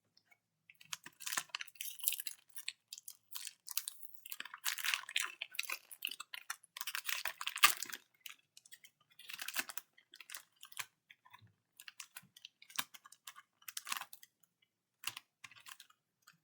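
Trading cards being handled: irregular bursts of rustling, sliding and clicking of card stock, busiest in the first half.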